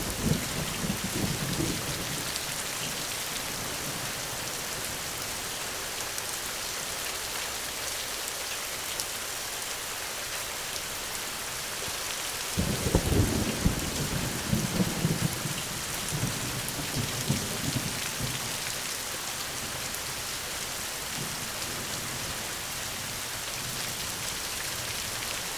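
Steady rain falling through a thunderstorm. A thunder rumble dies away in the first couple of seconds, and another breaks in suddenly about halfway and rolls on for several seconds.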